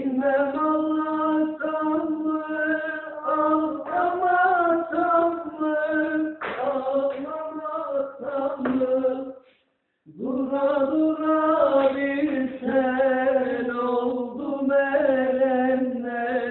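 A man singing a Turkish folk song (türkü) unaccompanied, in long held, ornamented phrases with a wavering pitch. He breaks off briefly about ten seconds in.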